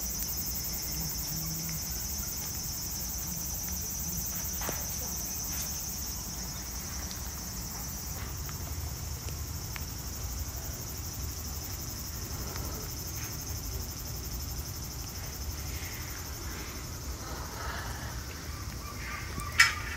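Steady high-pitched drone of insects over a low background rumble, with one sharp click just before the end.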